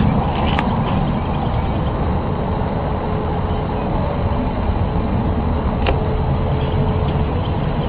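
A steady, deep rumbling drone with a faint held tone above it: the unexplained noise that residents recorded going on for hours, its source unknown.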